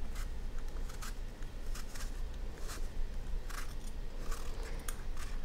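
Rada vegetable peeler shaving the skin off a raw apple: a series of short crisp scraping strokes, about one a second, as the blade cuts the peel.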